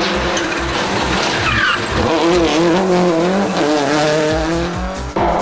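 Subaru Impreza WRC's turbocharged flat-four rally engine revving hard, its pitch rising and falling with throttle and gear changes through corners. There is a brief squeal of tyres about a second and a half in, and the sound breaks off abruptly near the end as it cuts to another pass of the car.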